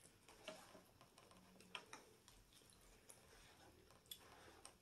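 Near silence with a few faint, short clicks as a fork picks at food in a cardboard takeout box.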